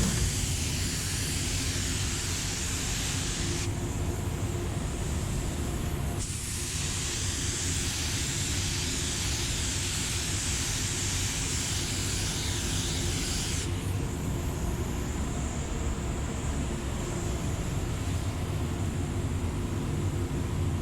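Compressed air hissing in two long blasts: the first cuts off about four seconds in, and the second starts around six seconds in and runs about seven and a half seconds. A steady low rumble runs underneath.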